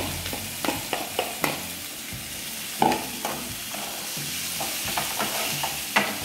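A spatula stirring and scraping boiled potatoes in a frying pan of hot oil and tempered spices over a gas flame, with a steady sizzle underneath. Repeated sharp scrapes and taps on the pan come through, the loudest about three seconds in and near the end. This is the potato filling being mixed in the pan.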